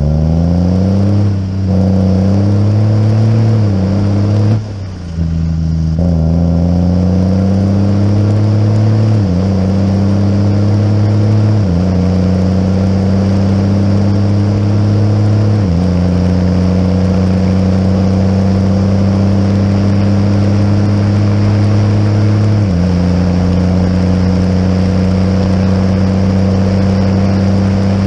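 Tractor engine pulling away and accelerating up through the gears, with two rises in revs and short lifts in the first few seconds. It then runs at steady revs, dipping briefly at each of four gear changes.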